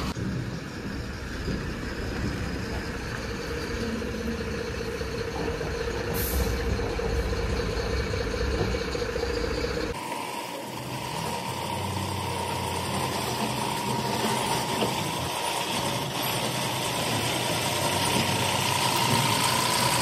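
Diesel engines of a backhoe loader and tipper trucks running steadily, with a held whine over them. The sound changes abruptly about halfway through.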